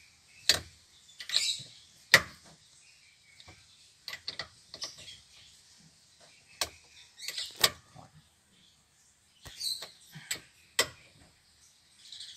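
Socket wrench tightening the steering-column nut over an aftermarket steering wheel hub: sharp metallic clicks at irregular intervals, with short bursts of faster ratchet clicking between them.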